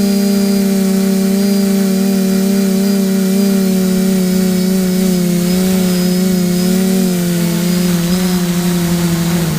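An engine running at a steady speed, its pitch easing down slightly over the last couple of seconds.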